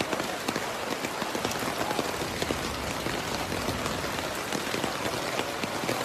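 Heavy rain falling: a steady hiss thick with the small ticks of drops striking surfaces.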